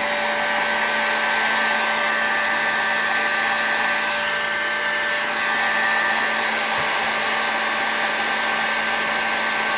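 Electric heat gun running steadily: a steady whine over the rush of air from its fan. It is blowing hot air onto a model engine's piston to loosen the piston pin so it can be tapped out.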